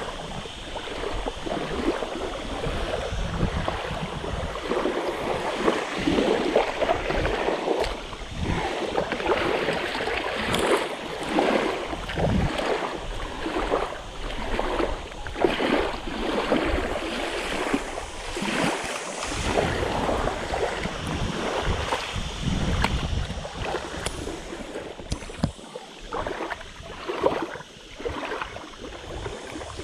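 Wind buffeting the microphone in irregular gusts over small waves washing against a rocky shoreline, with water splashing as a hooked carp is netted and lifted from the shallows.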